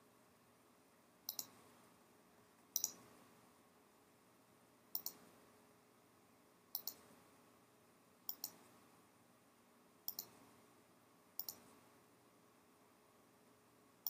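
Computer mouse button clicks, each a quick press-and-release pair, about every one and a half seconds: seven or eight clicks in all, faint over quiet room tone.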